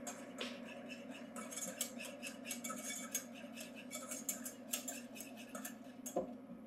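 A metal utensil clinking and scraping irregularly against a saucepan as water and sugar are stirred together to dissolve for a syrup. A steady low hum runs underneath.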